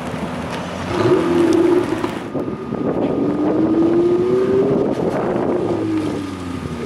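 Ferrari 488's twin-turbo V8 engine: a short rev about a second in, then the car pulling away with the engine note climbing steadily. The note eases off and drops in pitch near the end.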